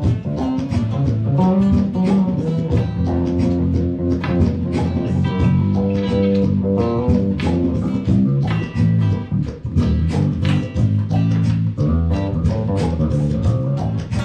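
Live band playing an instrumental number: guitar and bass guitar over a steady, quick beat.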